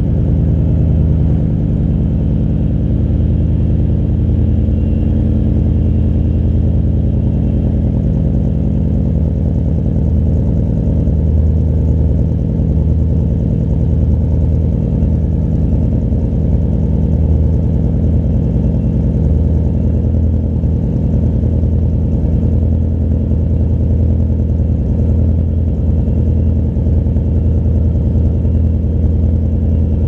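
BMW E39 M5's 4.9-litre V8 idling steadily through a custom exhaust with quad tailpipes, a deep, even burble.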